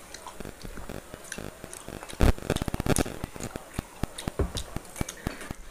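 Eating sounds at a table: fingers working food on steel plates, with chewing and small clicks. About two seconds in there is a louder knock, followed by a quick run of clicks.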